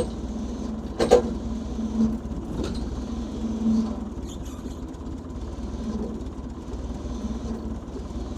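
An engine running steadily, with a couple of sharp knocks, one about a second in and another a couple of seconds later.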